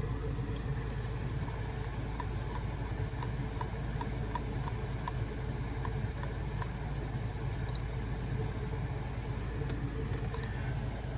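A steady low mechanical hum, with a run of light, evenly spaced ticks, about two or three a second, for several seconds in the first half, and a single sharp click about two-thirds of the way through.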